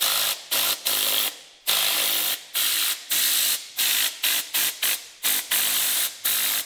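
Tornador compressed-air cleaning gun spraying water and detergent onto a rear drum brake, fired in about a dozen short trigger bursts of loud hissing spray.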